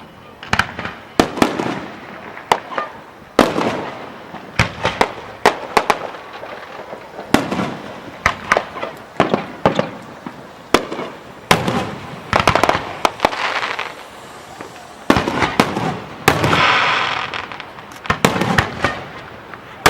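Fireworks display: many sharp shell bursts and bangs in quick, irregular succession, with a denser, longer stretch about three-quarters of the way through.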